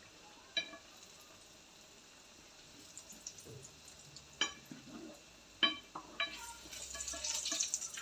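Potato-and-tuna balls frying in a shallow pan of hot oil, with a few sharp clicks of a utensil against the pan. The sizzling grows louder over the last second or two.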